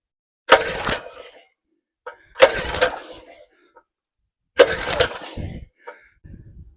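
Recoil pull-starter of a Predator 223cc pressure washer engine yanked three times, about two seconds apart, the engine turning over without firing because its ignition switch is off.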